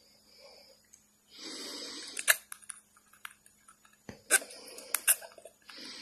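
Cockatiel making breathy hisses into a clear plastic cup, two of them about a second long, with sharp clicks of its beak knocking against the cup's rim in between; the clicks are the loudest sounds.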